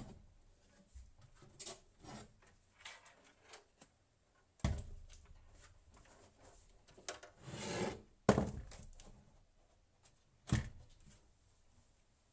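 Handling noise: a series of knocks and light clicks, the loudest about eight seconds in, with a short scraping, rustling stretch just before it.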